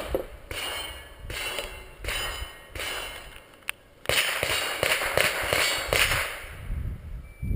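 Pistol shots with steel targets ringing on a shooting range: a run of sharp reports about one every three-quarters of a second, a pause, then a quicker flurry of shots and ringing steel.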